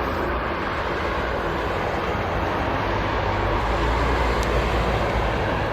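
Jet airliner engine noise: a steady rushing roar with low rumble, swelling slightly a few seconds in.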